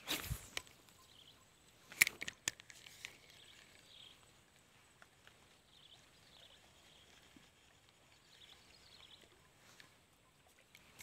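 Camera handling at the start, a brief rustle and bump, then a few sharp clicks about two seconds in. After that, a faint outdoor background with soft short chirps every second or so.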